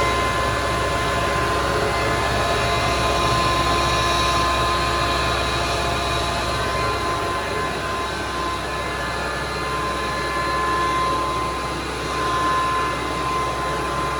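Combine rice mill machine running at speed: a steady mechanical hum under a constant high whine, with the level wavering slightly.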